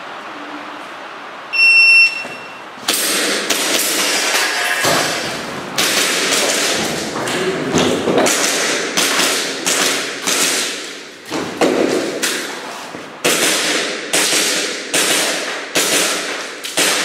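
Shot-timer start beep, then a long string of airsoft pistol shots during a timed stage, about two or three a second, each crack echoing briefly, the last about fifteen seconds after the beep.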